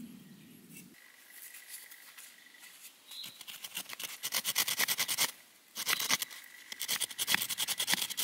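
A knife scraping and carving into a wooden fire board in rapid, scratchy strokes, several a second, starting about three seconds in and breaking off briefly about five seconds in.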